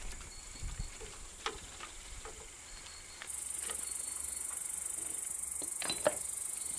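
A few light metallic clicks and taps as a wrench is worked on a bolt of a Briggs & Stratton 10 hp engine, the sharpest pair near the end. A steady high hiss comes in suddenly about three seconds in and carries on under them.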